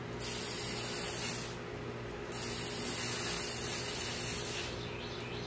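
Garden hose spray nozzle hissing as a jet of water shoots out, in two spurts: one about a second long, then, after a short break, a longer one of about two seconds.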